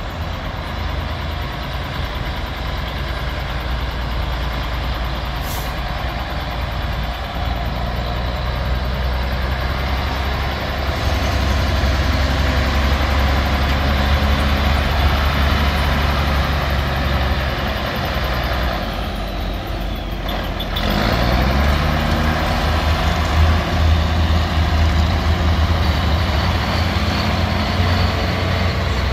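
Mack tractor's diesel engine pulling away and growing louder, with a short hiss of air about five seconds in. Around twenty seconds in the engine drops off for a gear change, then climbs in pitch again as it pulls through the next gear.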